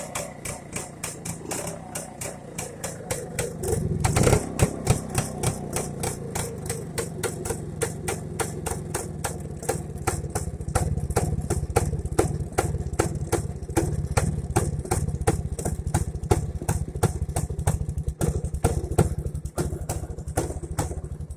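Rajdoot Electronic 175's single-cylinder two-stroke engine running on its exhaust, freshly restored. It idles slowly and unevenly at first, then the throttle opens about four seconds in and it settles into a louder, faster, steady run.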